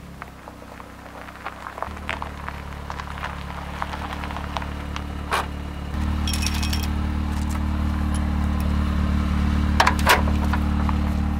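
Car engine running with a steady low drone that steps up in level about two seconds in and again about six seconds in, with scattered clicks, knocks and rattles over it.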